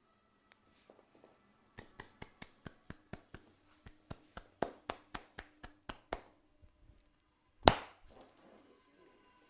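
Percussive massage strikes: a run of quick, sharp taps on the head or shoulders, about four a second, followed near the end by a single much louder strike.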